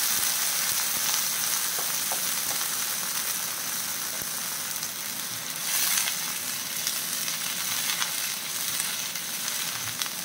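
Chicken feet sizzling and bubbling in a wok in hot oil with a little water added. A steady hiss that eases off slowly, swelling briefly about six seconds in as a spatula stirs them.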